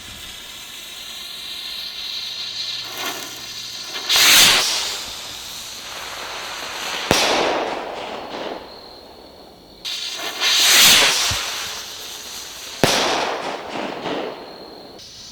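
Firework sky rockets launching one after another. Each lift-off is a rushing hiss of about half a second to a second, and a sharp crack follows a few seconds later as the rocket bursts. There are two launch-and-crack pairs, with a third launch at the very end.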